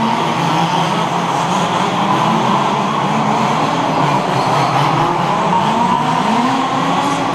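Several 1/5-scale HPI Baja RC buggies racing, their small two-stroke petrol engines revving up and down over one another.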